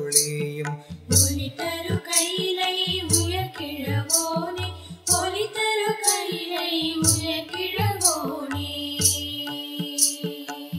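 Tamil devotional hymn in Carnatic style. A sung word ends near the start, then a wavering melody carries on over a low pulsing beat, with a crisp percussion stroke about once a second.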